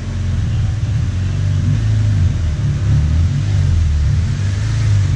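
Honda Civic Si's K20 four-cylinder engine running at low revs with the muffler removed, a loud, deep exhaust rumble that swells slightly as the car is backed in slowly.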